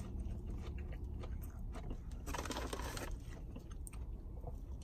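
Faint chewing on a fried mozzarella stick, with a brief crunchy rustle about two and a half seconds in, over a low steady hum.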